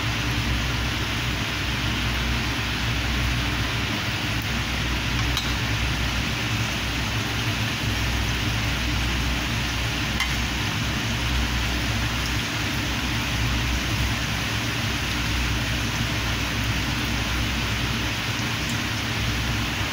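Lamb sambusas sizzling steadily in hot oil in a frying pan, an even crackling hiss.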